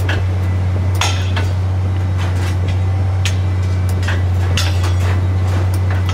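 A track-laying machine running with a steady low drone, while irregular sharp metallic clinks and clanks come from the steel rails moving through its guides and over the sleepers.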